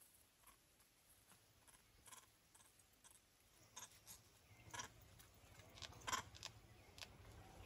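Near silence with faint, scattered short clicks and crackles, more of them and a little louder in the second half.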